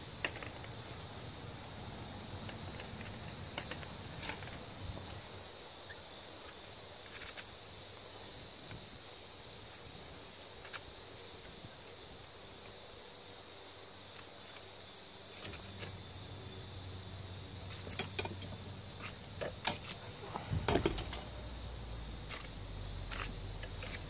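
Faint clicks, scrapes and rustles of wire being pulled through a handheld Copper Mine model 102 copper wire stripper as its blade slits the plastic insulation. The handling noises grow more frequent in the last third, with a low thump near the end, over a steady high insect buzz.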